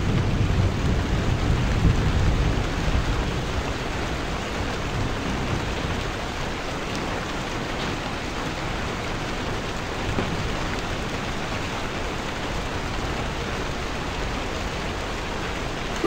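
Steady rain falling, an even hiss, with a low rumble of thunder dying away in the first couple of seconds.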